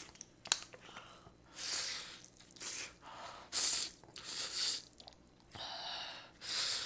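A person biting and chewing food: crisp, wet mouth noises that come in bursts about once a second.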